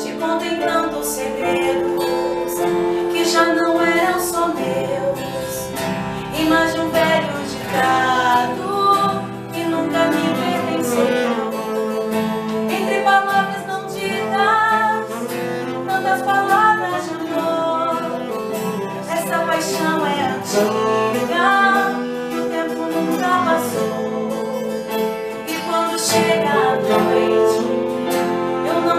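Small acoustic band playing a slow ballad: acoustic guitar and keyboard under a melodic lead line.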